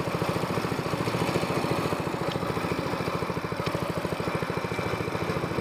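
Small air-cooled gasoline outboard motor on a jon boat running steadily, its fast even firing pulse unbroken.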